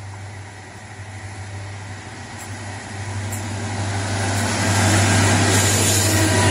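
Diesel-hauled freight train approaching and passing: the locomotives' engines and the wheels on the rails grow steadily louder, reaching full volume as the locomotives go by about five seconds in.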